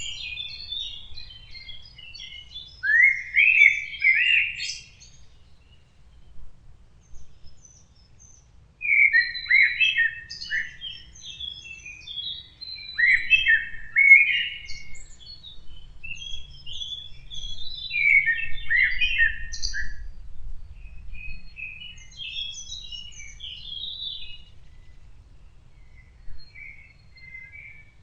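Songbirds singing in the open: bursts of quick chirping, warbling phrases, each a second or two long, with short pauses between them and quieter song trailing off near the end.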